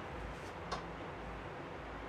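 A single short, sharp click about three-quarters of a second in, over a steady hiss of background noise.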